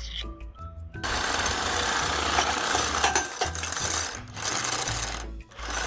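Power tool, most likely an air impact wrench, running in two bursts: a long one from about a second in and a shorter one near the end. It is being used to get a stuck part out of the ATV's clutch.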